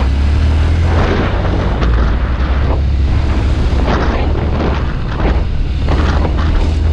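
Heavy wind buffeting on the microphone over the steady low rumble of a Honda Twister motorcycle riding along.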